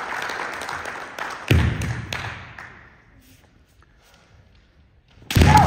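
Applause and crowd noise in a large hall dying away, with one heavy thud about a second and a half in. The hall then falls quiet until a kendo fencer's loud, drawn-out kiai shout starts near the end.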